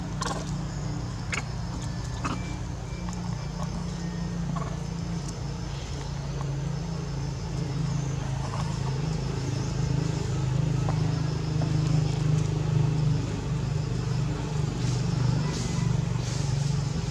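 Steady low motor hum, growing a little louder in the second half, with a few scattered light clicks.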